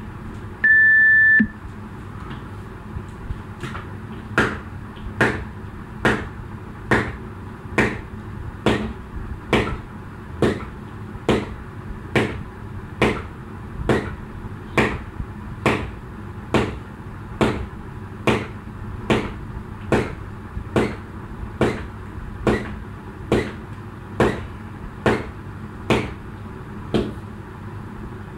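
An electronic interval-timer beep sounds once for about a second, then a jump rope slaps the floor in an even rhythm, a sharp slap a little more than once a second.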